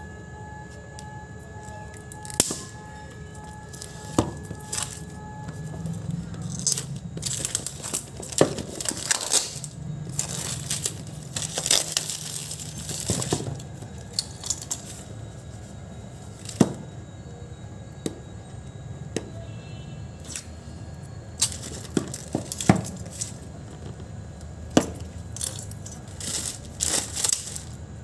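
Plastic shrink wrap on a phone box being slit with a key and torn off, crinkling and crackling in bursts, with sharp clicks and taps as the cardboard box is handled, over a steady low hum.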